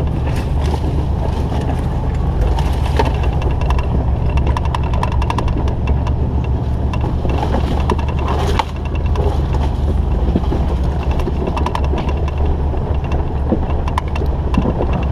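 Jeep running along a rocky off-road trail: a steady low engine rumble with frequent rattles and knocks from the vehicle.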